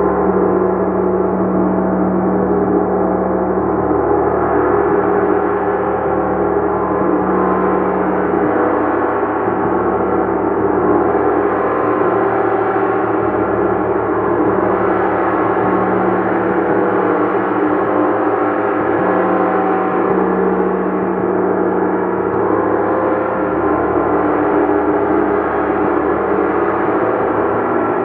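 Gong played continuously in a sound-bath style, a dense wash of many overlapping sustained tones with no separate strikes standing out, swelling and easing gently.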